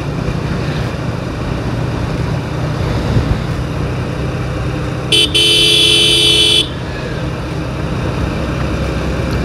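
Motorcycle cruising at steady speed, its engine and road noise a constant rumble. About five seconds in, a horn gives a short blip and then a held honk of about a second and a half.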